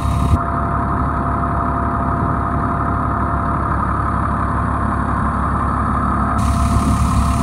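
Fire truck's 8.3-litre Cummins diesel running steadily at idle, driving the 8-kilowatt hydraulic generator, which is powering the scene lights. A deep, even hum with a thin constant tone above it.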